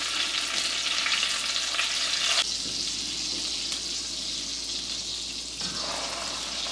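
Cooking sizzle and bubbling on a gas stove as gnocchetti are lifted from a pot of boiling water with a slotted spoon into a pan of browned butter and sage. A steady hiss that drops in level abruptly about two and a half seconds in.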